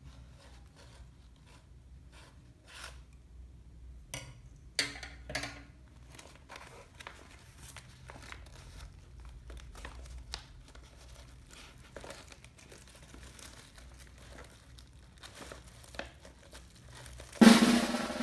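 Soft, scattered rustles and light taps of a book and its packaging being handled. Near the end, a loud snare drum roll starts suddenly.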